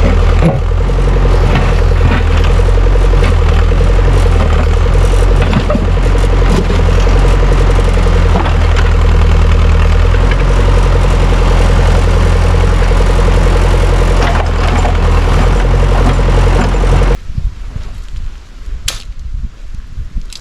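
Engine running loud and steady with a deep rumble, then cut off suddenly about seventeen seconds in; a few light knocks follow.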